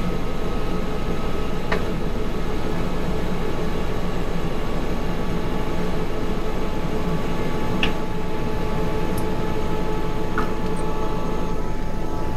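Airbus AS350B3's Arriel 2B1 turboshaft engine and main rotor running steadily at idle after start, heard inside the cockpit as a constant rumble and whine. A few light clicks are heard about two, eight and ten seconds in.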